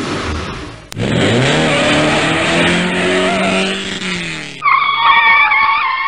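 Mitsubishi Evo X's turbocharged four-cylinder revving hard, in spliced clips: a rough, noisy run to about a second in, then a quick climb in pitch held for about three seconds before easing off. It ends with a cut to a high, wavering squeal.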